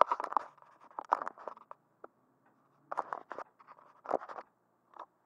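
Scratching and clicking handling noise close to the microphone, in four or five short clusters about a second apart.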